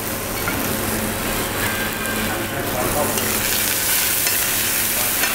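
Venison fillet searing in a frying pan with sprigs of thyme and rosemary, a steady sizzle.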